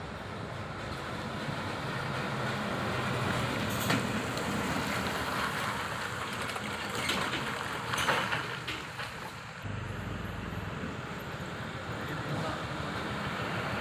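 Heavy trucks driving on a road: a steady din of engines and tyres that grows louder over the first few seconds, with sharper clatters about 4 and 8 seconds in.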